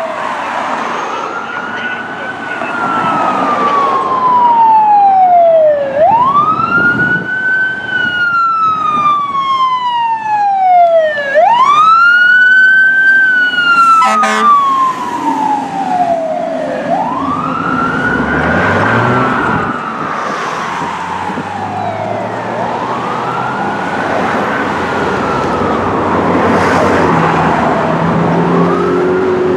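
Fire engine siren wailing in repeated cycles, each rising quickly and falling slowly over about five seconds. It grows loud as the engine approaches and passes, then fades as it moves away, with the truck's engine audible accelerating in the second half.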